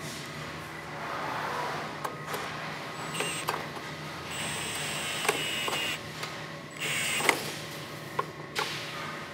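Milwaukee M18 FUEL cordless drill driving screws in short bursts of a high motor whine: a brief one about three seconds in, a longer one of about a second and a half, then another shorter one, with clicks and knocks of handling between them.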